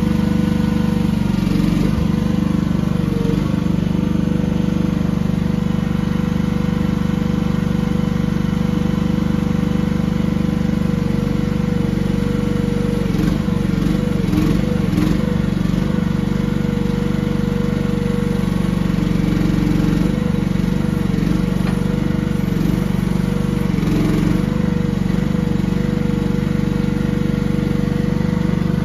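AGT H15 mini excavator's small engine running steadily as the boom, arm and bucket are worked on the joystick controls, with a whine whose pitch dips and wavers briefly now and then.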